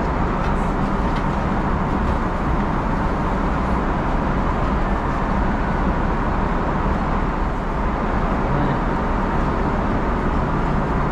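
Steady cabin noise of a Boeing 777-300ER in flight: an even rush of airflow and engine noise at a constant level, heaviest in the low end.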